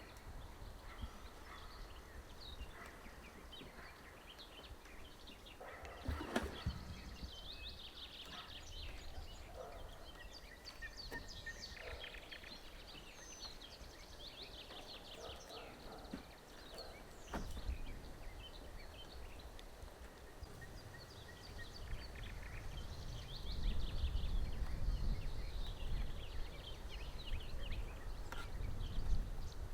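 Forest birds chirping and trilling. There are a few sharp knocks, one about six seconds in and another about seventeen seconds in, and a low rumble grows over the last several seconds.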